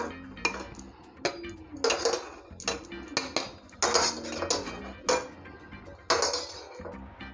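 Steel slotted spoon clinking and scraping against a kadhai and a steel plate, a string of sharp clinks and short scrapes, as boiled bitter gourds are lifted out and set on the plate.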